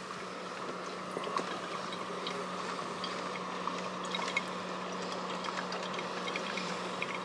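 Coffee brewing: a steady hiss over a low continuous hum, with small pops and gurgles of liquid throughout.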